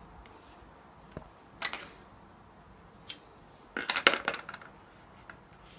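Handling noises from card and double-sided sticky tape being worked by hand on a tabletop: a few light clicks and rustles, then a louder cluster of crackling about four seconds in.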